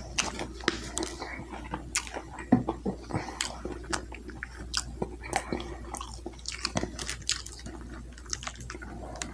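Close-miked chewing of food: irregular wet clicks, smacks and crunches from the mouth, several a second.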